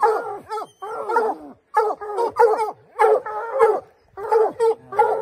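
Hunting hounds barking excitedly at a freshly killed mountain lion, a run of short barks about two a second.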